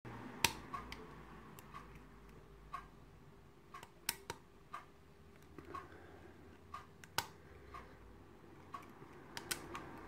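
Small, sharp metallic clicks and ticks, irregularly spaced, from a hook pick and tension wrench working the pins of a brass pin-tumbler lock cylinder as the pins are probed in a deep false set.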